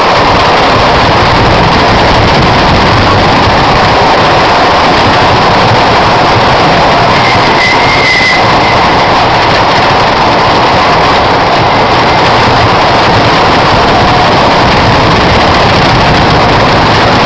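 Loud, steady rushing noise of a ride on the Hurricane wooden roller coaster: wind blasting over the microphone mixed with the coaster train running along its track.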